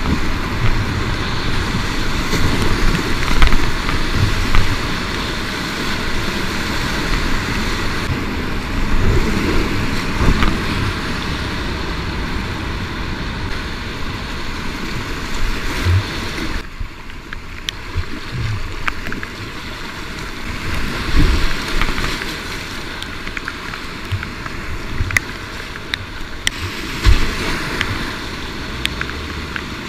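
Rushing whitewater of a flooded creek splashing around a kayak close to the microphone, with frequent low thumps of water and paddle strokes. About halfway through the sound turns duller and a little quieter.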